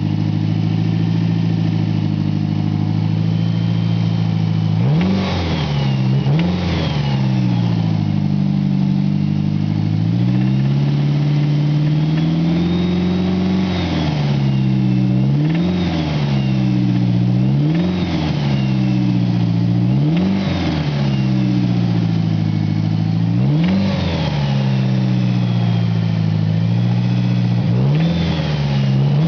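A 1991 Mitsubishi Eclipse's four-cylinder engine idles for about five seconds, then is revved repeatedly: two quick blips, one slower, longer climb, and then a single blip every two to three seconds. It is making a recently developed noise that the owner suspects may be rod knock.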